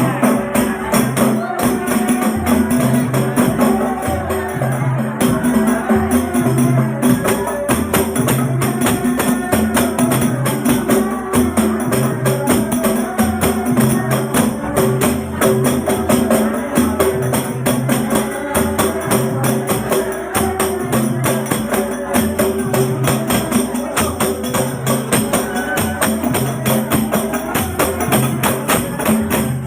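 Rebana ensemble of Indonesian frame drums playing a fast, steady rhythm, with a jangling high rattle over the strokes and a deeper beat repeating about once a second.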